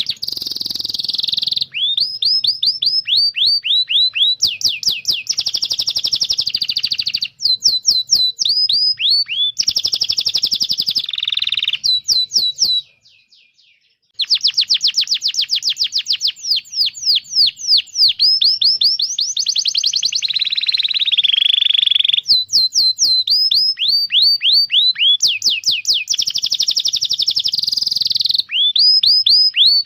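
Domestic canary singing: fast trills of repeated down-slurred chirps, one tour after another, with a brief pause about halfway through.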